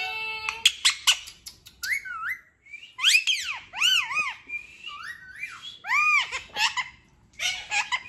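Indian ringneck parakeet calling: a string of rising-and-falling whistles and a few short sharp squawks near the start.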